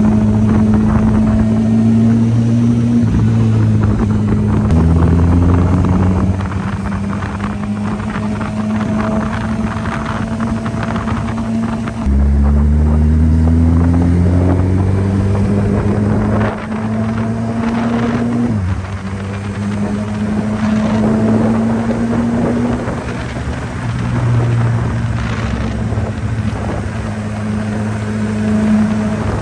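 Honda CB1000R inline-four motorcycle with an aftermarket exhaust, heard from the rider's seat while riding. The engine pitch climbs and drops several times as it accelerates and shifts through the gears, with the strongest pull starting about twelve seconds in. Wind is on the microphone.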